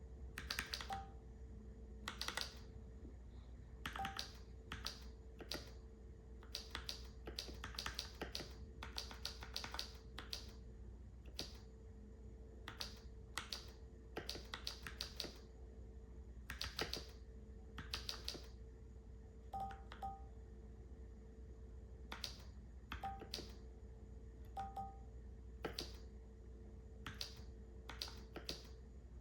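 Keychron K4 v2 mechanical keyboard with Gateron G Pro brown switches being typed on, keystrokes coming in uneven runs and pauses as home-row keys are pressed one at a time.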